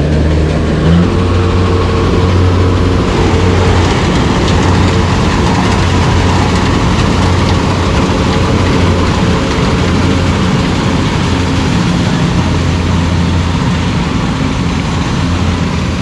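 Kubota rice combine harvester's engine running steadily as the machine drives into the rice and starts harvesting, its pitch rising a little about a second in.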